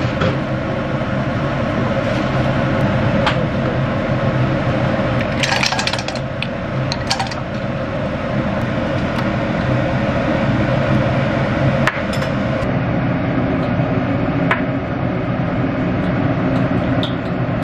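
Kitchen sounds: a steady rushing noise with a few light clinks and taps of dishes and utensils, a small cluster of them about six seconds in.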